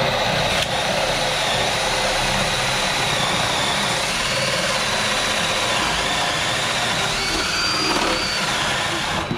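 Electric drill running steadily under load with a high, wavering motor whine, boring through the wall's bottom plate. The whine rises briefly about eight seconds in.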